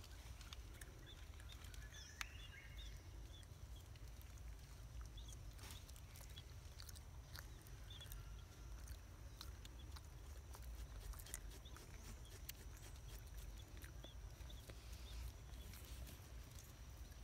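Faint outdoor background: a steady low rumble with a few faint, short high chirps and scattered small clicks and rustles.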